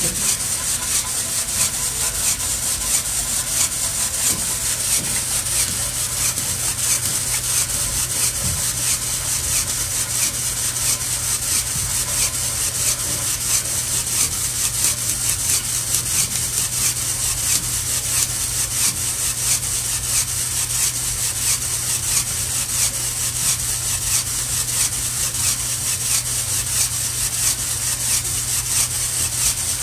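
Steady, rapid rhythmic scraping from a motor-driven part of a student-built chain-reaction machine, with a low steady hum beneath it.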